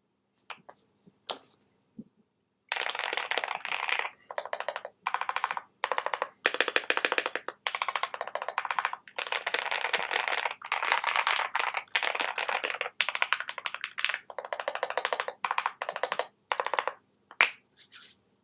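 Phase One mechanical keyboard with lubed and filmed Durock Koala tactile switches on a polycarbonate plate and PBT keycaps, being typed on. A few single keystrokes come first, then fast typing about three seconds in, in runs of rapid clicks broken by short pauses.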